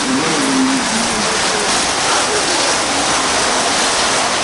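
A steady, loud rushing hiss, with a person's voice heard briefly in the first second.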